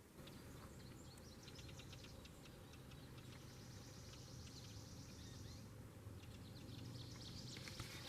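Faint outdoor ambience with small birds chirping at intervals and a short buzzy trill a few seconds in, over a low steady hum.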